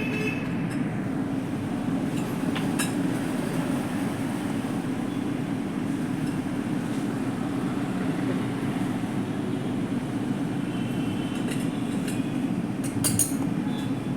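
Steady low rumble of background road traffic, with a few light metallic clinks, around three seconds in and near the end.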